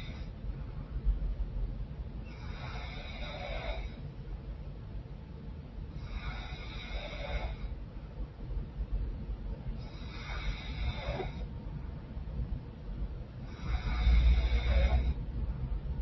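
A woman snoring through a blocked, runny nose: a snorting, wheezy snore with a whistly edge about every four seconds, four in all, the last one the loudest.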